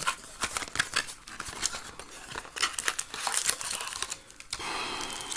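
Plastic and cardboard packaging of a trading card box crinkling and tearing as the box is opened by hand, with rapid crackles throughout and a steadier scratchy stretch near the end.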